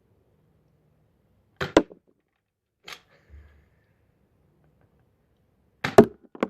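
A few sharp knocks in a small room: a quick double knock about two seconds in, a lighter one a second later, and the loudest near the end.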